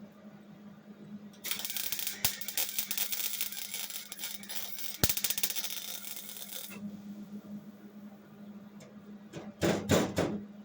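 Wire-feed welder arc crackling for about five seconds as a weld is run on sheet-metal body panel, with a sharp click partway through. A few short, loud bursts follow near the end.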